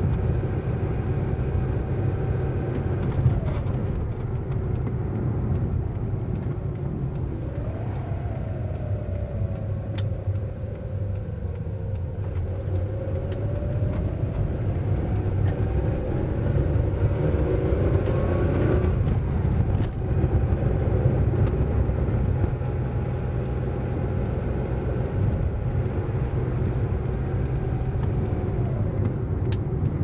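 Car driving, heard from inside the cabin: a steady low engine and road rumble, with the engine note climbing slowly and then dropping sharply a few times.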